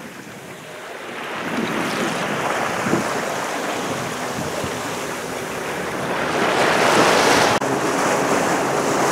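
Water rushing and splashing along the hull of a boat under way in choppy sea, with wind buffeting the microphone. It swells about a second in, is loudest around six to seven seconds in, and dips sharply for a moment about seven and a half seconds in.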